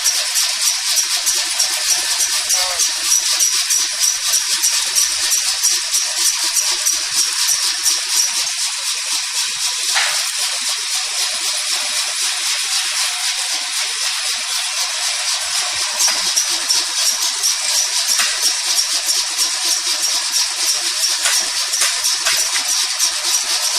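Combined coconut dehusking and scraping machine running, a continuous high rattling hiss with a few faint clicks.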